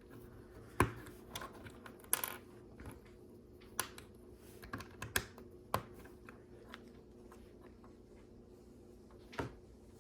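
Plastic LEGO bricks clicking and tapping as pieces are handled and fitted together: scattered sharp clicks, a brief rustle about two seconds in, then a pause before one last click near the end.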